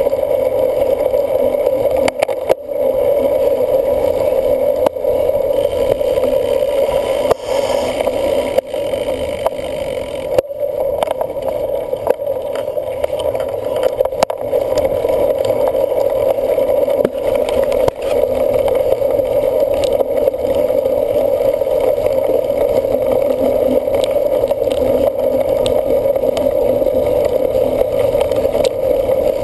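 Steady loud rushing noise of a cyclocross bicycle being ridden in a race, heard up close, with scattered sharp knocks as it rides over bumps.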